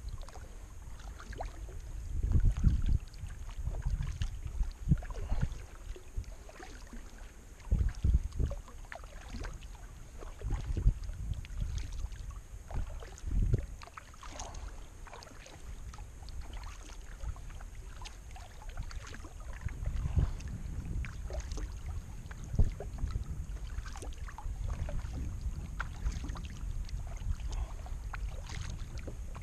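Kayak paddle strokes splashing and dripping in river water, with low rumbles of wind and handling on the microphone.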